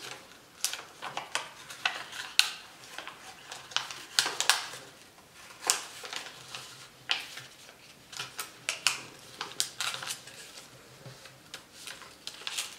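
A sheet of white paper being folded by hand: irregular crackles and rustles as the corner flaps are turned over and pressed flat.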